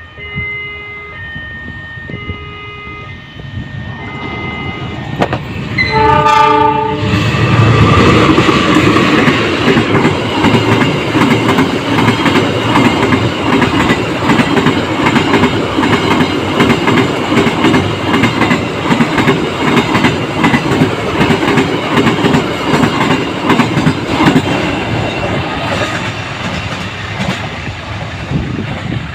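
The single-tone horn of locomotive CC 201 92 12, a General Electric diesel-electric, sounds briefly about six seconds in. The locomotive and its train then pass close by: loud, steady running noise with rhythmic clatter of the wheels over the rail joints. Short repeated tones sound over the first four seconds, before the horn.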